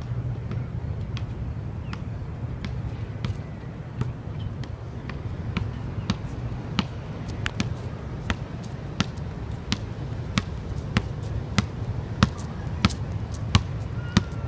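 A series of short, sharp clicks or taps, sparse at first and about one to two a second from about six seconds in, over a steady low rumble.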